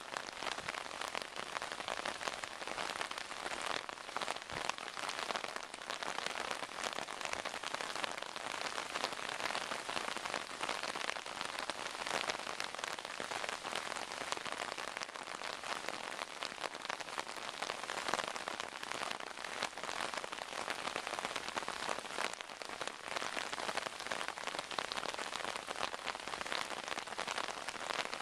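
Torrential rain pouring down steadily: a dense, even hiss of countless drops striking, without a break.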